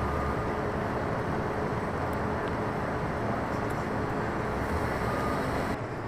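Steady city street noise: a low rumble of idling engines and traffic, with a faint steady hum. It drops a little just before the end.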